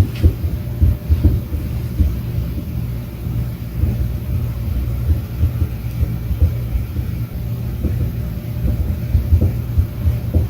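Muffled, low-pitched tapping and knocking coming through the building structure from a neighbour's apartment, irregular and repeated over a steady low hum. The neighbour attributes it to his cat working at a slow feeder.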